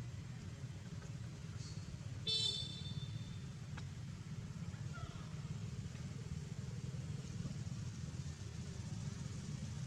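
A steady low rumble, with one short high-pitched toot about two seconds in and a faint click near four seconds.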